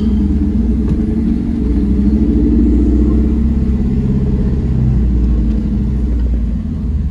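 Roush Ford Mustang's engine and exhaust running at low speed as the car rolls slowly, heard from inside the cabin: a steady low rumble that dips slightly near the end.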